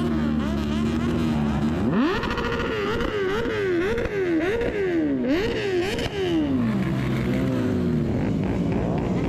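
Sport motorcycle engine, a green Kawasaki Ninja, running steadily, then revved sharply about two seconds in and blipped up and down several times in quick succession before dropping back to a low idle.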